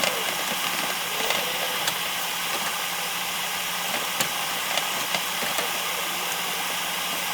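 Steady hiss of a cleaning spray jet over a low, even motor hum, with a few small clicks and spatters.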